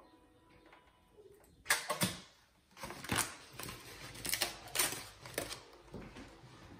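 Thin foam packing sheet and its sticky tape being peeled off an air fryer's plastic lid. It crinkles and rustles in a run of short bursts that start about two seconds in.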